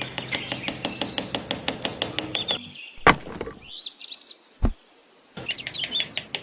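Rapid, even tapping, about six taps a second, with small birds chirping over it. The tapping stops for a couple of seconds in the middle, leaving a few chirps and two single louder knocks, then starts again.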